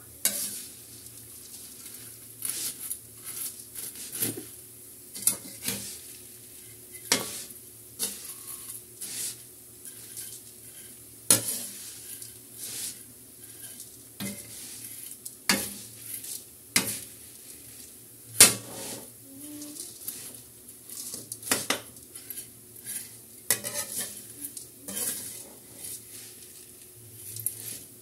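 Stainless steel spatula scraping and clanking against a steel wok while pancit bato noodles are tossed and stir-fried, with a steady sizzle of frying underneath. The clanks come irregularly, about one every second or two.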